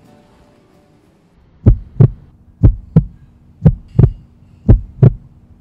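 Heartbeat sound effect: a low lub-dub double thump, four times at about one beat a second, starting about a second and a half in.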